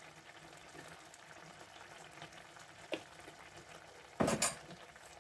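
Thick tomato-and-eggplant sauce simmering in a pan, with faint, steady bubbling and sizzling. There is a single click about three seconds in and a short, louder clatter near the end.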